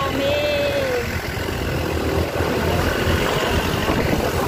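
Motorcycle engine running at low speed in street traffic, a steady low rumble heard from on the bike.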